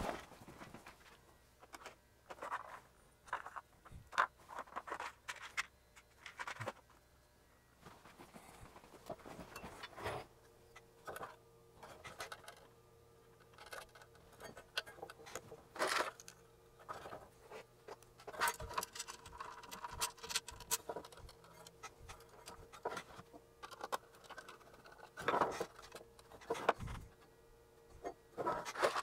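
Irregular small clicks, taps and scrapes of hands handling a sheet-metal oscilloscope chassis and the wiring inside it.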